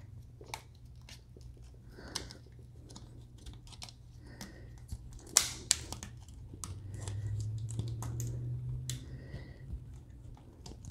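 Small clicks and rubbing as a rubber gasket is worked by hand onto a plastic ATV tail-light housing, with one sharper click about five seconds in. A low steady hum runs underneath and grows louder for a couple of seconds past the middle.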